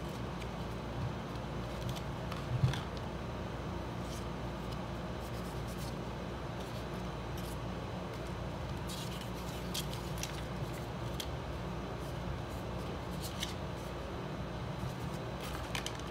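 Paper and thin card packaging being handled: light rustles and small clicks as an iPhone's instruction brochure sleeve, SIM-ejector card and sticker are pulled apart, over a steady low hum. A soft thump about two and a half seconds in is the loudest sound.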